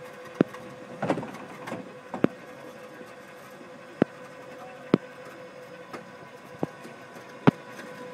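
Electric hoist motor running with a steady whine as it lifts a heavy bull moose carcass by the antlers, with sharp clicks at irregular intervals, about six in all.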